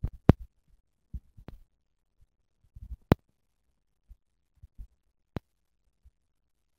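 Rabbit chewing Timothy hay close up: irregular crunches and a few sharp clicks, separated by quiet gaps.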